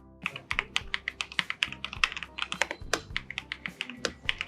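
Fast, continuous typing on the Epomaker Glyph mechanical keyboard with linear Wisteria switches, a rapid run of crisp key clacks that starts a moment in.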